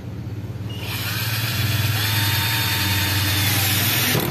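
INGCO cordless drill driving a screw into a plywood panel: the motor starts about a second in, its whine rising as it spins up, then runs steadily under load.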